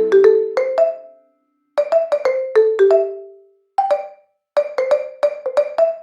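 Background music: short runs of quick, bright struck notes, each dying away, with brief silences between the runs.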